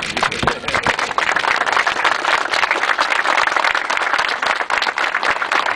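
A crowd applauding, a dense patter of many hands clapping that swells about a second in and holds steady.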